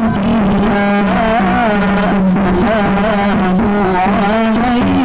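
Hadroh performance of Islamic devotional song (shalawat) played loud through a large rented PA sound system: a wavering, ornamented melody line over a steady low held note.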